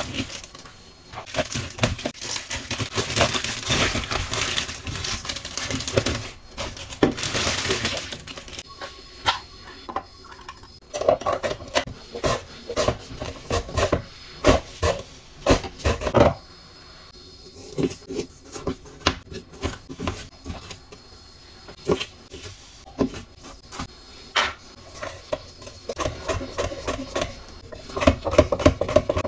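Plastic produce bags rustling and crinkling, then a carrot being grated on a plastic mandoline grater in repeated rasping strokes, with sharp clicks and knocks as the grater's plastic blade inserts are handled and swapped.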